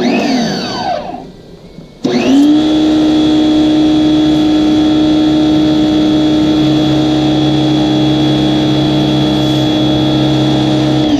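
Electric pressure washer's motor and pump winding down with a falling whine, then starting up abruptly about two seconds in and running with a steady hum.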